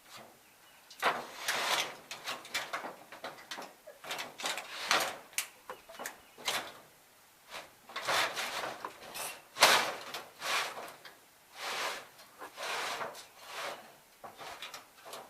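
Irregular scraping and rustling, a string of short noisy scuffs with brief pauses between them.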